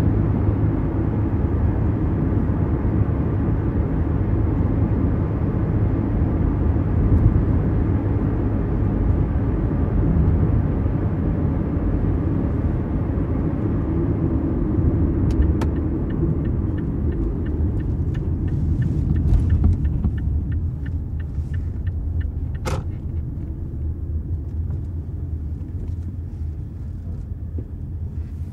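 Mazda CX-5 heard from inside the cabin while driving: a steady low engine and road rumble that eases off and gets quieter in the last third as the car slows. A run of light clicks starts about halfway through, with one sharper click shortly after.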